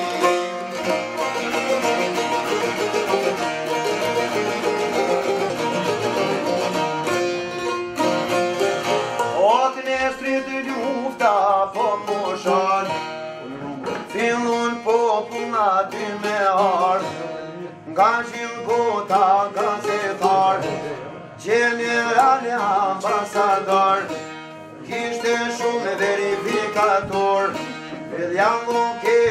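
Albanian folk music on çifteli and sharki, the plucked long-necked lutes. Steady strumming at first, then from about ten seconds in a gliding, ornamented melody in short phrases with brief pauses between them.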